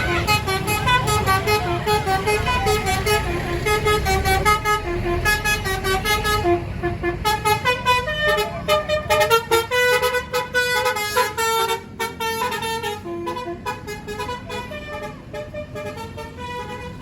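A bus's basuri telolet musical horn plays a quick melody of short pitched notes, the pitch stepping up and down several times a second. A low engine rumble runs under it in the first few seconds.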